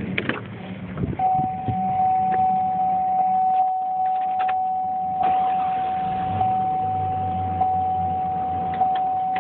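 Cadillac truck's V8 being cranked and firing on gasoline poured into the intake behind the throttle body, running without any fuel-pump supply, which shows the engine is sound and the fuel pump has failed. A steady high-pitched tone sounds over it from about a second in.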